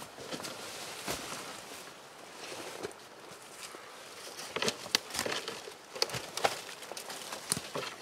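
Footsteps crunching through dry leaf litter and sticks on the forest floor, uneven and irregular, with sharper cracks of snapping twigs from about four and a half seconds in.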